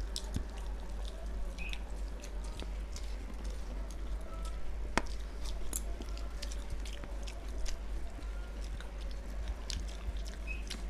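Close-miked eating by hand: wet chewing and rice and dal squished between the fingers, many small smacks and clicks with a sharper click about five seconds in, over a steady low hum.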